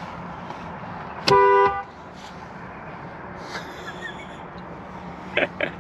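Vehicle horn honked once, a short blast of about half a second, about a second in.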